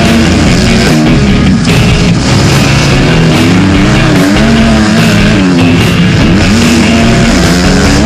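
Motocross bike engine revving hard, its pitch climbing and dropping again and again as the rider works through the gears, heard onboard and mixed with rock music.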